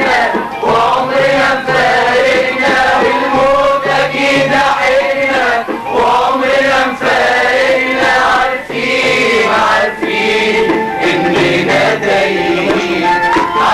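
A group of voices singing a chant-like song over music.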